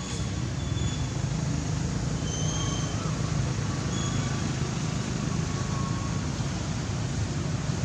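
Steady low rumbling noise, with a few faint short high chirps about one, two and a half and four seconds in.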